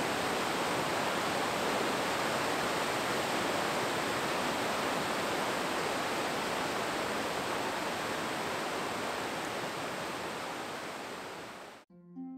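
Steady, even rushing of water that cuts off abruptly near the end. Plucked harp-like music notes begin right after.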